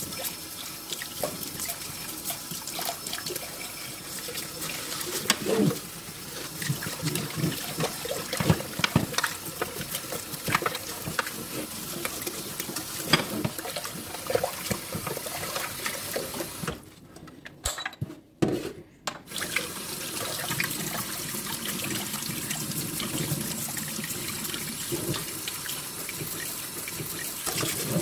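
Tap water running into a stainless-steel food-processor bowl in a metal sink while a dish brush scrubs it, with frequent knocks and scrapes of the brush and bowl against the metal. The water noise stops for about two seconds a little past the middle, then runs again.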